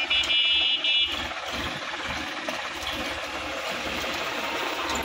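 Sonalika DI-50 RX tractor's diesel engine running as the tractor works through a flooded, muddy paddy, with water and mud churning around it. A steady high horn-like tone sounds for the first second, then stops.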